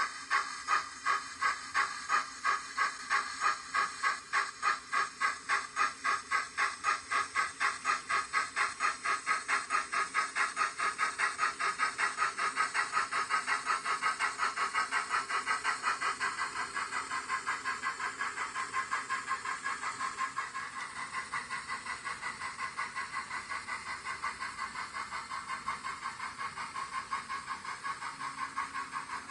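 Steam-engine chuffing from the DCC sound decoder of a Dapol Hawthorn Leslie model locomotive, heard as a steady beat of two to three chuffs a second that quickens and evens out over the second half, with a faint hiss.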